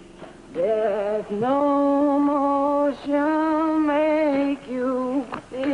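A single voice singing a slow melody unaccompanied, starting about half a second in, in long held notes with vibrato and short breaks between phrases.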